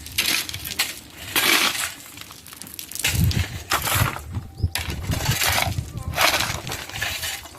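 Building work: a series of gritty crunching and scraping strokes, about one a second, with a low rumble around the middle.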